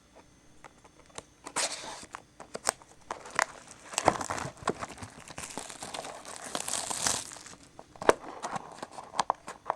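Plastic shrink-wrap being torn and crinkled off a sealed trading-card box: scattered sharp crackles, with a denser stretch of rustling from about four to seven seconds in.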